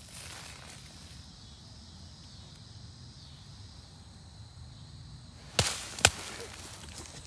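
Quiet outdoor background, then two sharp knocks about half a second apart near the end, the loudest sounds here.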